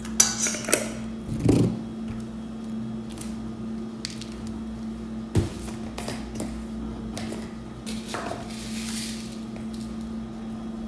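Hand-seasoning chicken in a stainless steel bowl: a few light clinks and knocks of a spoon and spice containers, and a soft hiss of seasoning being shaken out about eight seconds in, over a steady low hum.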